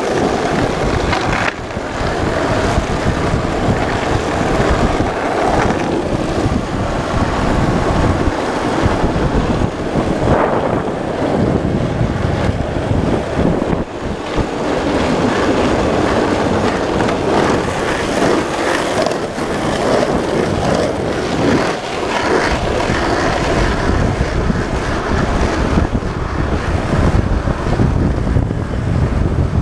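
Skateboard wheels rolling downhill on an asphalt road: a steady, loud rumble, with wind buffeting the microphone.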